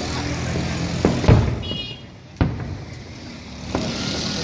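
Aerial fireworks shells bursting in the distance: a few sharp bangs, the loudest about a second and a half in, another near two and a half seconds and a fainter one near the end, over a steady low hum.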